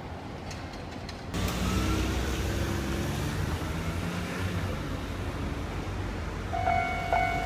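Road vehicles running past at a railway level crossing, the noise jumping suddenly louder about a second in. Near the end the crossing's electronic warning bell starts, a steady ringing tone pulsing about twice a second.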